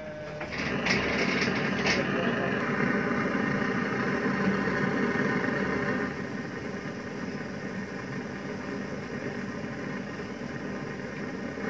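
A steady mechanical hum, like a small motor running, louder for the first six seconds and then a little quieter, with a few short clicks in the first two seconds.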